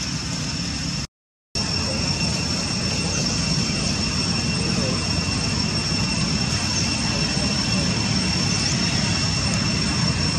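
Steady outdoor background noise: an even rushing hiss with a constant high-pitched whine over it, cut by a brief silent dropout about a second in. A few faint short chirps.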